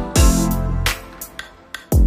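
Background music with a deep drum beat, a hit near the start and another just before the end, under held instrument notes.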